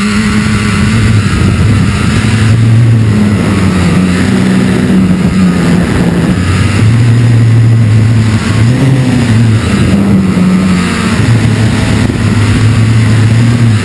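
FPV quadcopter's motors and propellers, close up on its onboard camera, running continuously with a hum whose pitch shifts up and down as the throttle changes.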